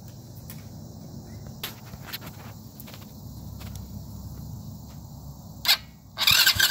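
Light clicks and handling noises over a low steady hum, then near the end a sharp click and about a second of loud mechanical noise as the electric starter turns over the new Chinese 125cc quad engine on its first test start.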